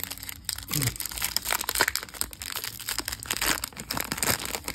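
Foil trading-card pack wrapper being torn open and crinkled in the hands, a dense irregular run of crackles.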